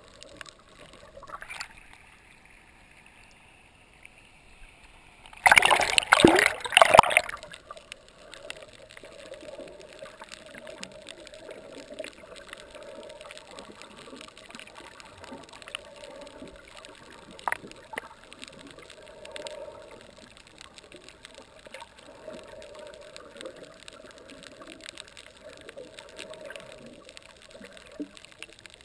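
Underwater water noise picked up by a submerged camera: a steady faint hiss with many fine crackling ticks, and a loud gurgling rush of water lasting about a second and a half, about six seconds in.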